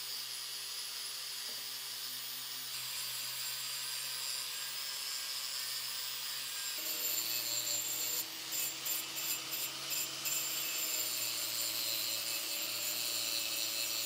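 Angle grinder with a wire cup brush spinning against a metal bicycle frame tube, scrubbing the paint off it: a steady hiss over the motor's hum. A little past halfway the sound dips in and out five or six times in quick succession.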